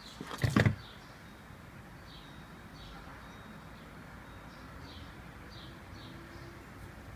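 A slider turtle's shell knocking a few times onto a wooden floor as it climbs down off a step, a brief clatter about half a second in. Faint bird chirps repeat in the background.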